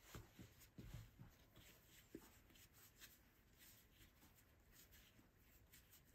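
Very faint rubbing and soft dull pats of hands rounding a ball of soft bread dough on a floured silicone mat, with a few light taps in the first second and a small click about two seconds in.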